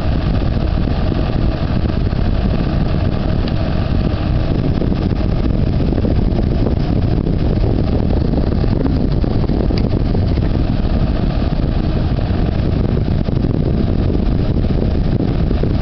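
Electric fan running steadily close to the microphone: an even, unchanging rushing drone that covers any stepping of the motor.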